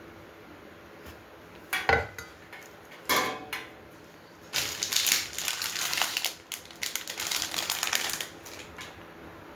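Metal grill parts and hardware being handled: two sharp clanks, then about four seconds of busy clinking and rattling, like small screws and pieces being rummaged through.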